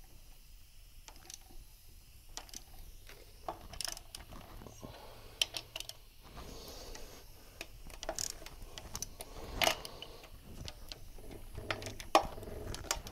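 Hand socket ratchet working 13 mm intake-manifold bolts loose, with quiet irregular ratchet clicks and a few sharper metal clinks of the socket and wrench.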